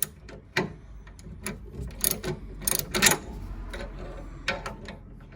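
Hand ratchet and socket clicking and clinking against metal in a handful of sharp, irregular strokes as a 13 mm socket is worked on a sway bar bushing bracket bolt.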